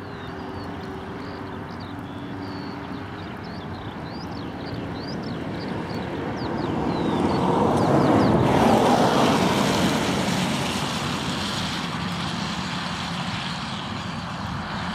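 Twin Pratt & Whitney Canada PW615F turbofans of a Cessna Citation Mustang jet running on the runway, the engine rush building to its loudest about eight seconds in, with a high hiss joining from then on.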